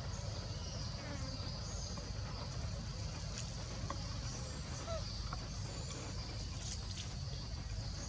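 A steady, high-pitched chorus of insects over a low rumble, with a few faint short chirps.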